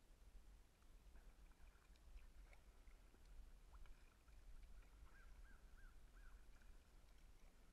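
Near silence, muffled by a waterproof camera housing, with a steady low rumble. A little past the middle comes a faint run of about four short chirps, each rising and falling.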